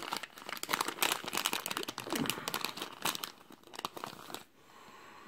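Foil blind-bag pin packet crinkling and rustling as fingers dig inside it for a pin, dying down near the end.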